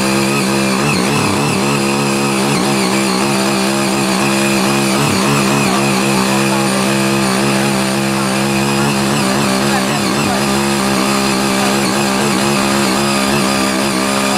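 The small petrol engine of a CY80 walk-behind power tiller running steadily under load while its rotary tines till the soil.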